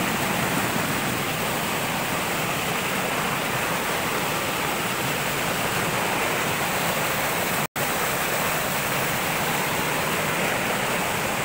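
Fast-flowing mountain stream rushing down a rocky cascade: a steady, continuous rush of water. The sound cuts out for an instant about two-thirds of the way through.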